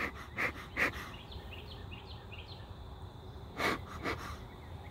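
Bee smoker's bellows being squeezed, puffing smoke into the hive entrance in short whooshes: three quick puffs, a pause, then two more near the end.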